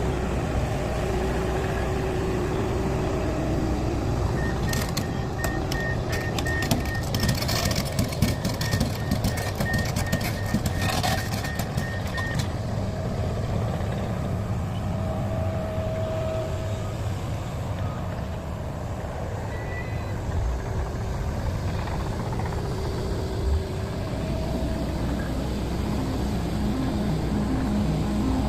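Komatsu PC650LC hydraulic excavator's diesel engine running steadily. From about five seconds in, its travel alarm beeps rapidly for around eight seconds, with sharp metal knocks and clanks over the same stretch.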